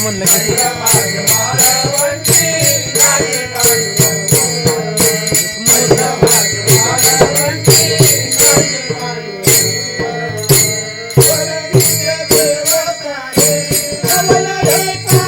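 Music: a sweet-sounding singing voice over a steady beat of rattling percussion.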